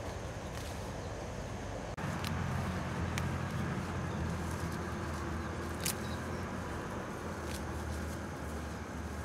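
A vehicle engine running steadily, a low hum under a rushing noise, growing a little louder about two seconds in.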